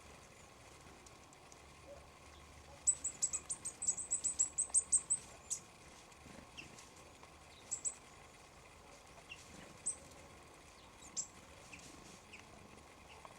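Small songbirds calling with thin, very high, short notes: a quick run of about a dozen calls about three seconds in, then a few scattered single and paired calls.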